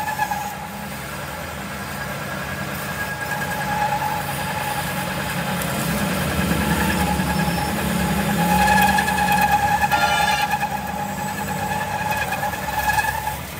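Metal lathe running under cut, turning a steel axle shaft as the tool peels off long ribbons of swarf. The machine hums steadily, and a whining tone rides over it, swelling and fading.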